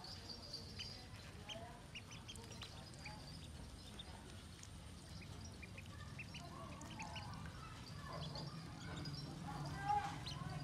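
Ducklings peeping: many short, high peeps scattered throughout, with one louder sound near the end.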